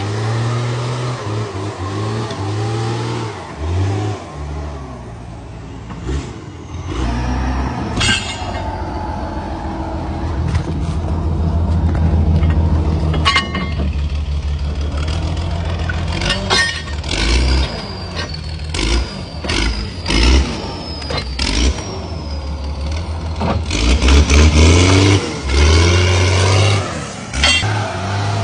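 TS22 log skidder's diesel engine revving and labouring under load as it drags logs, its note rising and falling, with several sharp knocks and clanks along the way.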